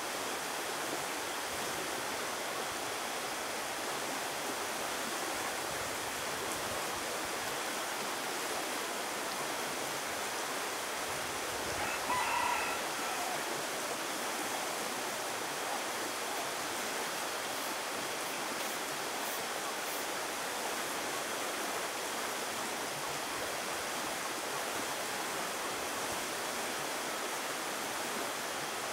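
Steady rushing noise of flowing water, with a single short rooster crow about twelve seconds in.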